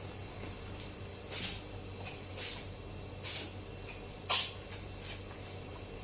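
Domestic cat sneezing four times in a row, about one sneeze a second, each a short sharp burst of air.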